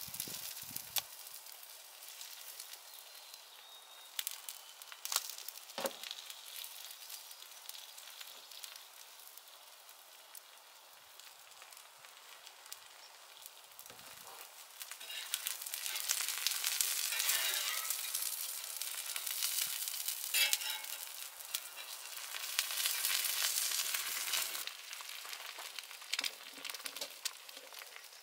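Sausages and a fried egg sizzling on a hot flat-top griddle, a steady crackling fry. The sizzle swells twice in the second half as cooking oil is poured onto the hot griddle, with a single knock about six seconds in.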